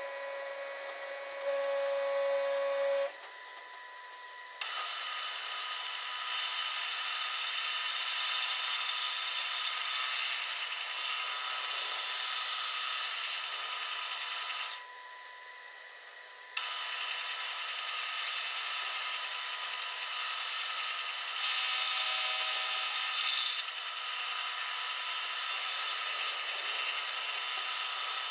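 Milling machine cutting the valve cutout in an aluminium piston crown, the spindle motor running steadily with the hiss of the cutter as the rotary table carries the cut round. It drops back briefly twice.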